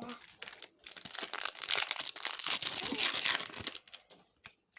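Foil booster pack wrapper crinkling as it is handled and torn open, a dense crackle lasting about three seconds that dies away near the end.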